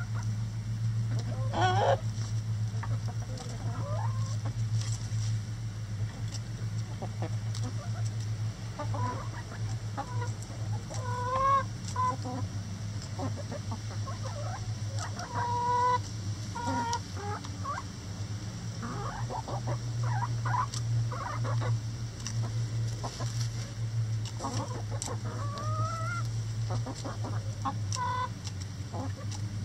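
Backyard chickens and roosters clucking and calling in short bursts while they peck at a hanging cabbage, with many quick sharp taps among the calls. A steady low hum runs underneath.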